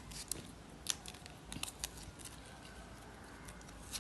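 Faint, scattered short clicks and snaps as raw jackfruit bulbs are split open and their seeds pulled out.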